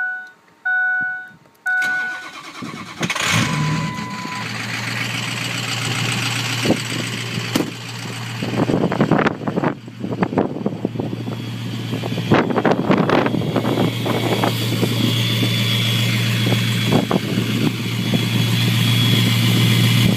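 A few dashboard chime beeps, then a 2003 Ford 6.0L Powerstroke turbo-diesel, fitted with an MBRP 5-inch exhaust, cranks and fires about three seconds in and settles into a steady idle. A faint turbo whistle comes in past the middle.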